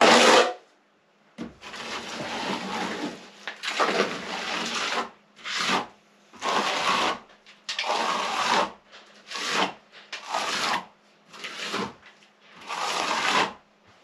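A plastering tool scraping and spreading hemp-lime plaster on a wall in about ten strokes, some short and some over a second long, with brief pauses between. The strokes open with a short, loud knock, and a faint steady hum runs underneath.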